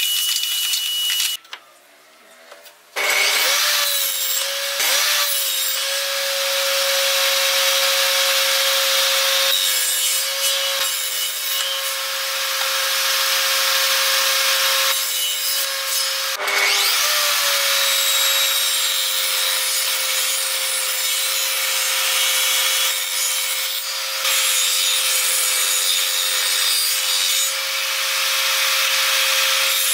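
Table saw running with a steady whine while its blade cuts pine pallet wood, crosscutting small blocks and ripping thin strips. The sound stops briefly after about a second and again for a moment about halfway, then the saw comes back up to speed.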